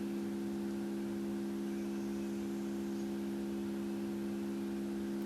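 Tone generator playing a steady 68 Hz tone, heard as an unchanging hum whose overtones are stronger than the low note itself.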